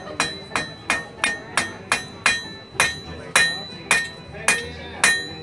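Blacksmith's hammer forging a red-hot iron bar on an anvil: a steady run of blows, about two to three a second, each one ringing briefly.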